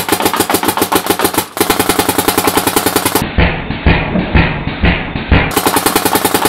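Dye CZR electronic paintball marker firing a rapid, even string of shots, about ten a second.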